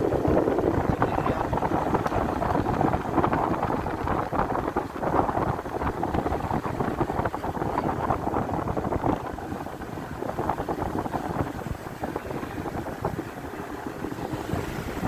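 Motorcycle running on the move, its engine noise mixed with wind buffeting the microphone; it gets somewhat quieter after about nine seconds.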